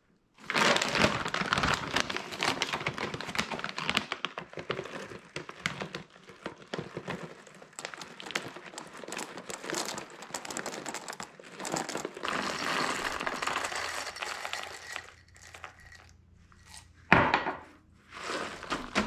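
Dried beans being poured into a bag: a dense stream of small clicks lasting about fifteen seconds. A single sharp knock follows near the end.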